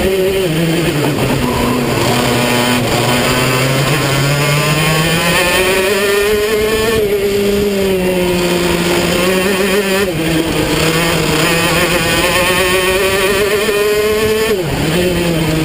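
Racing kart engine heard on board at racing speed, its pitch rising under acceleration and falling as the driver lifts for corners, with a few abrupt jumps in pitch.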